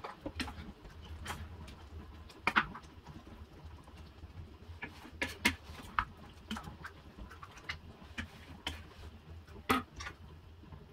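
A wooden spoon stirs a thick, simmering vegetable sauce in a stainless-steel saucepan, making irregular clicks and knocks against the pan, a few a second. A few louder knocks come along the way, and the clicking carries on faintly after the stirring stops, over a low steady hum.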